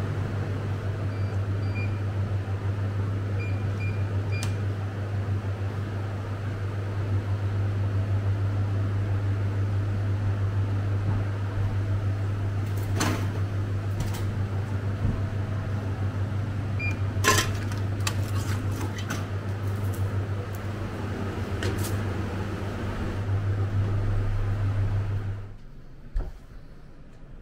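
A steady low electrical hum from an appliance running, with a few faint short beeps in the first seconds and a couple of sharp clicks midway. The hum cuts off suddenly near the end.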